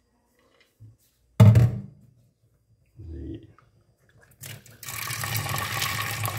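A single loud thump with a brief ring, typical of a steel pot set down in a stainless-steel sink, about a second and a half in. From about five seconds in, tap water runs steadily into the stainless-steel pot of raw peanuts.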